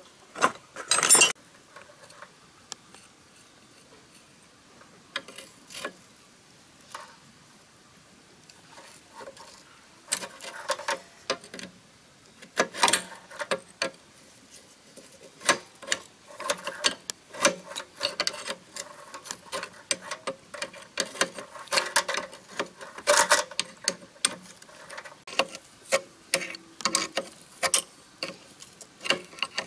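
Metal spanner clicking and clinking against the nuts and fittings of a D8 diesel engine as they are worked loose. The short metallic clicks are sparse at first, with a brief clatter about a second in, and come quickly and steadily through the second half.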